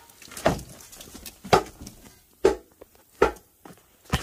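Clanks and thuds of rusty scrap metal parts being handled and set down in a junk pile: five separate knocks, roughly a second apart.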